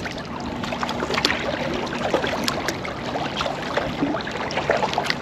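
Water splashing and trickling around a sea kayak as the paddles stroke, with many small sharp splashes and drips.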